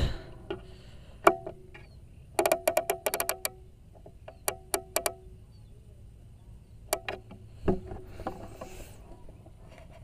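Riflescope turret being turned by hand to adjust the scope: a run of sharp detent clicks, about a dozen in quick succession a couple of seconds in, then four more around the middle and a couple more later.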